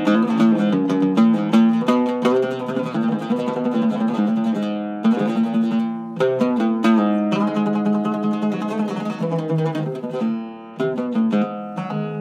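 Zaryab Iraqi-style oud with a floating bridge and cedar top, plucked with a pick to run through notes across its range, with quick runs of repeated strokes. The playing breaks off briefly about five seconds in and again near the end, where the last notes ring on.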